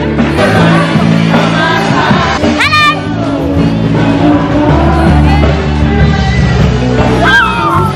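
Music: a song with singing over a steady bass line, with two short sliding vocal cries, one a few seconds in and one near the end.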